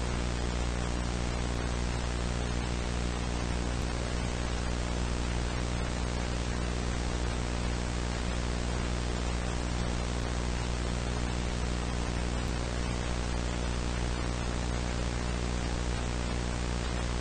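Steady static hiss with a low buzzing hum underneath.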